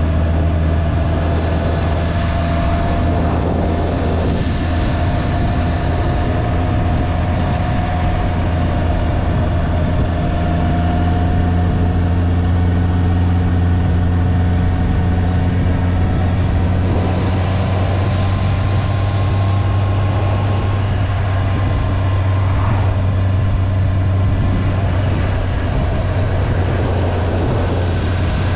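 Motorcycle engine running steadily while riding, with road and wind noise; a faint higher tone in it climbs slowly in pitch as the bike gathers speed.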